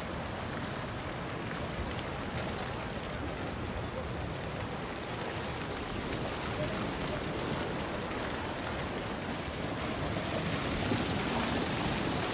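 Heavy rain falling steadily, a dense even hiss that grows a little louder toward the end.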